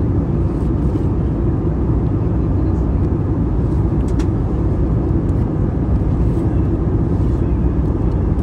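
Airbus A320neo cabin noise heard from an economy seat: a steady, even low rumble of engines and airflow, with a faint click about four seconds in.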